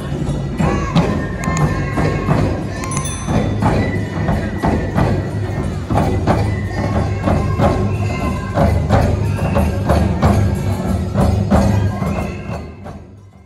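Nebuta festival band music: taiko drums struck in a steady rhythm with ringing metal hand cymbals, fading out near the end.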